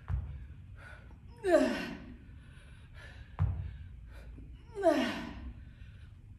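A woman's voice letting out two loud, forceful exhales that fall in pitch, about three and a half seconds apart, from the effort of weighted squats with dumbbell curls. A dull low thump comes shortly before each exhale.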